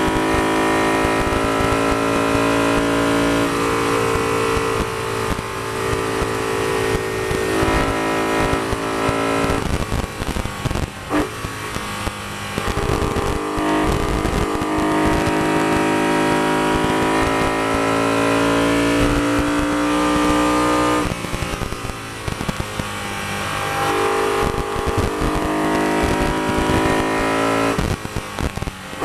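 BMW E92 M3's V8 engine running hard at high revs, heard from inside the cabin. The pitch drops and breaks up about ten seconds in and again a little past twenty seconds as the driver lifts and the M-DKG gearbox shifts, then climbs again each time.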